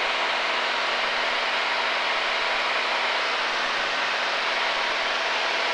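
Mooney single-engine piston airplane in cruise flight, heard from inside the cabin: the engine and propeller make a steady, even rushing hiss with a faint hum under it.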